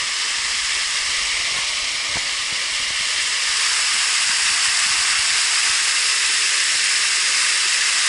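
Waterfall pouring down a steep rock face: a steady hiss of falling water that grows a little louder about halfway through.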